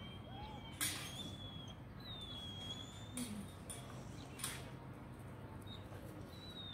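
Quiet backyard ambience: a steady low hum with a few thin, high, slightly falling whistling calls, and three sharp clicks, the loudest about a second in.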